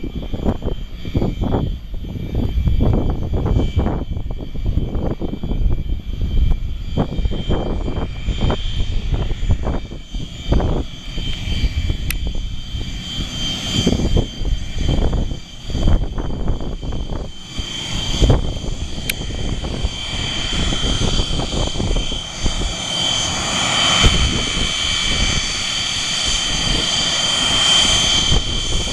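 EA-6B Prowler's twin J52 turbojet engines whining at taxi power, the steady high whine growing louder over the last several seconds as the jet comes closer. Heavy, irregular low buffeting on the microphone runs under it through the first two-thirds.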